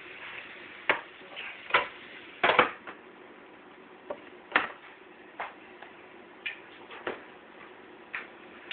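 Irregular sharp clicks and knocks of kitchen containers and utensils being handled while seasoning a roast, about ten in all and loudest in the first three seconds, over a steady low hiss.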